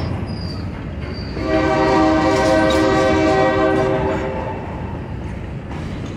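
Freight train's hopper cars rolling past with a steady low rumble and wheel noise. About a second and a half in, the locomotive's horn sounds one steady chord for about three seconds.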